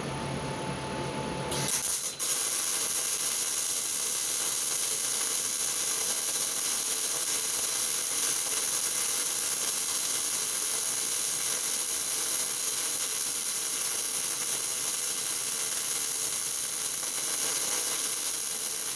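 Small 110-volt wire-feed welder's arc crackling steadily as one continuous bead is laid around a shaft turning slowly in a lathe. The arc strikes about a second and a half in, breaks off for an instant, then runs unbroken to the end.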